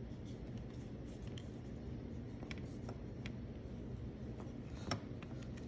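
Faint, scattered small plastic clicks and taps from the pieces of an opened Xbox One controller being handled and fitted, over a low steady background hum.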